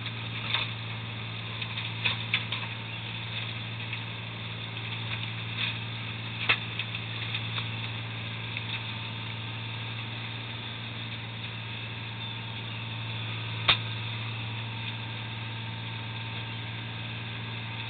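Fishing boat's engine running with a steady low drone, with a few scattered sharp knocks and clatters over it, the loudest about a third of the way in and another near the end.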